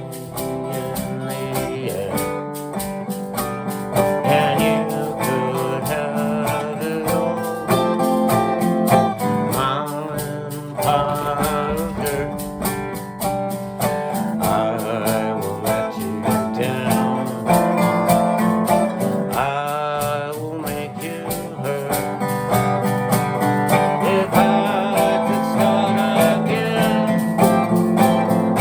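Country-style music with acoustic guitar and a singing voice.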